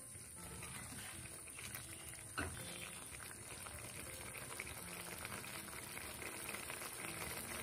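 Cauliflower curry gravy simmering in a non-stick karahi: a steady, soft bubbling and popping, with one light tap about two and a half seconds in.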